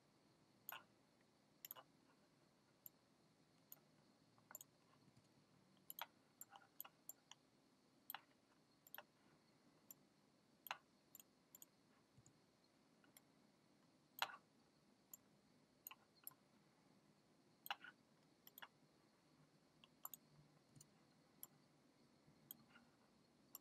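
Faint computer mouse clicks, irregularly spaced and sometimes in quick pairs, over a quiet background hiss.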